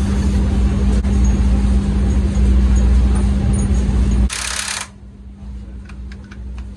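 Cordless impact wrench running an old bolt into a cross-threaded bolt hole on the shredder's blade clamp to clean up the damaged thread: a loud steady run of about four seconds that stops abruptly. A short hiss of aerosol spray follows.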